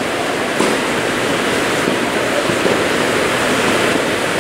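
A tennis ball struck once by a racket, about half a second in, over a loud steady rushing noise.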